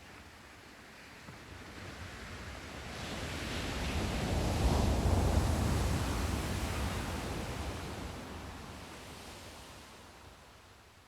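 Ocean surf: one wave washing in, swelling to a peak about five seconds in, then slowly fading away.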